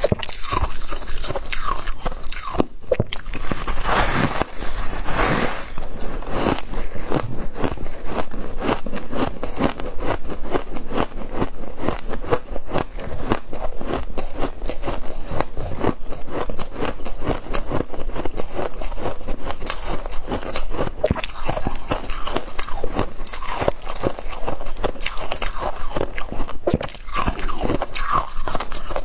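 Close-up crunching and chewing of frozen frost, a dense unbroken run of crisp, crackling crunches.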